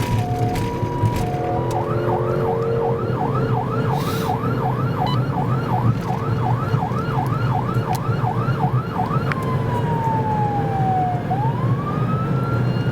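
Police cruiser's electronic siren, heard from inside the car over steady engine and road noise. It starts on an alternating two-tone hi-lo, switches to a fast yelp of about two and a half sweeps a second, then changes about nine seconds in to a slow wail that falls and rises.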